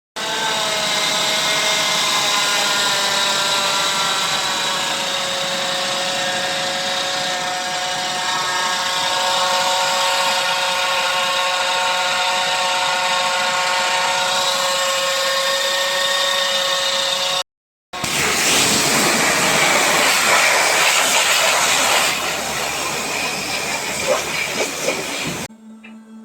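Kia Stonic 1.0 T-GDI engine running with a steady, high whine over a hiss, the noise of a worn AC compressor clutch bearing. About 17 seconds in, after a sudden cut, a louder and rougher hissing noise takes over for several seconds, and it drops to a quieter sound near the end.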